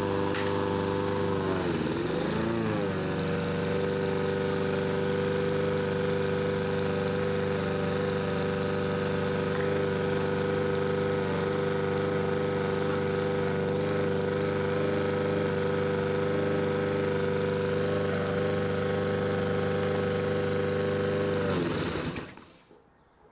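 Lawnmower engine running, its pitch wavering for the first few seconds before settling to a steady speed, then slowing and cutting out about 22 seconds in. The owner thinks the grass may be too long, which would be why it stalls.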